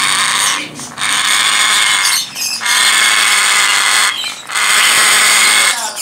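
African grey parrot giving long, harsh, noisy screeches, each about a second and a half long, repeated with short breaks between them.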